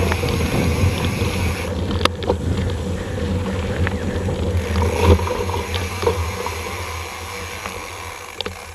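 Wind buffeting an action camera's microphone as a mountain bike rolls over a dirt trail, with scattered rattles and clicks from the bike jolting over bumps. The rumble eases toward the end as the bike slows.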